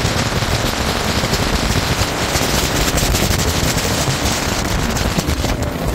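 A jet boat running at speed, its engine and the rushing water a steady loud noise, with wind buffeting the microphone in a dense, rapid crackle.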